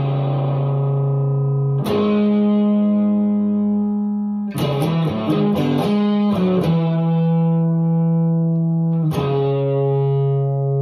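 Distorted electric guitar playing sustained chords, each struck and left ringing for a few seconds, with a quick run of several chord changes near the middle.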